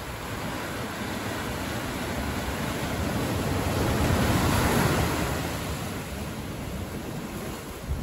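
Sea waves breaking on a rocky shore and washing up over sand. The surf swells to a peak about halfway through, as a wave breaks, then ebbs away.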